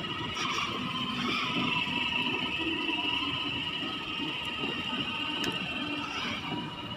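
Battery-powered ride-on toy jeep driving across a tiled floor, its electric motors and gearbox giving a steady high whine.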